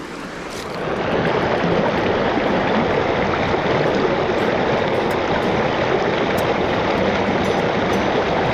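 River water rushing in a steady, loud rush that swells about a second in and then holds.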